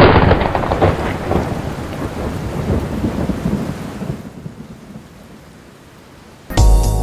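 A sudden loud thunder-like rumble that fades away over about five seconds. Music with a strong beat starts near the end.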